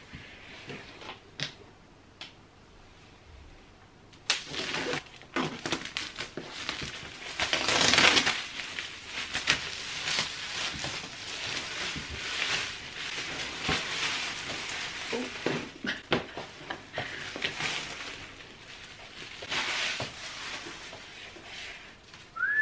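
Clear plastic wrapping being torn and crumpled off a cardboard gift box, a long stretch of loud crinkling that starts about four seconds in, after a few light knocks of the box being handled.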